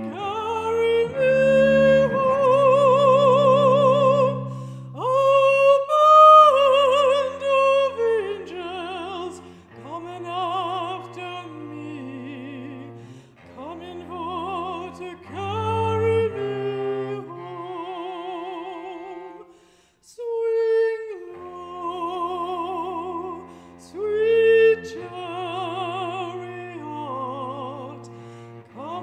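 Mezzo-soprano singing a slow spiritual with wide vibrato, accompanied by a cello holding low sustained notes. The phrases are separated by a short pause about two-thirds of the way through.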